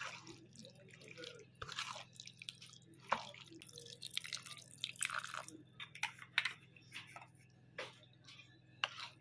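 Wooden spatula stirring and scraping through a thick, wet mix of garlic cloves and spice paste in a metal kadai, giving irregular squelching scrapes. A thin stream of oil is poured into the pan part way through.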